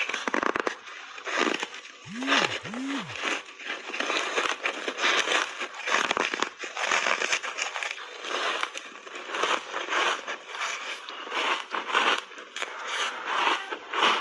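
Close-miked biting and chewing of crunchy foam ice thickly coated in matcha powder: a dense run of crisp crunches with brief pauses between chews.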